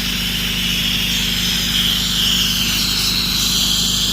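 Pressure-washer rig's Predator 459 single-cylinder gas engine running steadily under load without bogging down, with the hiss of the high-pressure water spray over it.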